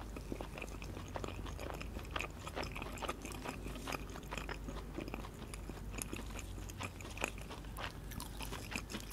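Close-miked biting and chewing of battered fried fish. The crisp batter crunches in a steady run of small crackles.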